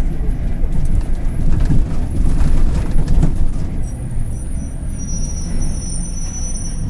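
Mercedes-Benz OF-1721 city bus's diesel drivetrain heard from on board, a dense low rumble with the growl of a worn bearing. About halfway through the rumble eases a little and a thin, high-pitched squeal sets in and holds.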